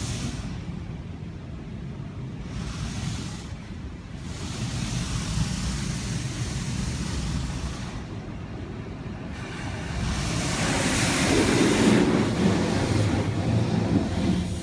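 Automatic car wash rinse sprayers blasting water against the car, heard from inside the cabin as a muffled rushing hiss that swells and fades as the spray moves over the car, loudest near the end.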